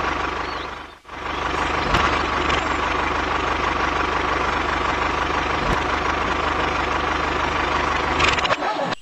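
A tractor engine sound running steadily, dubbed over a toy tractor. It drops out briefly about a second in, then carries on.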